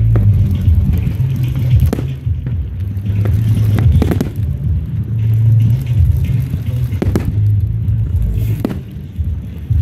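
Aerial firework shells bursting, several sharp bangs a second or two apart, over a loud, continuous low rumble.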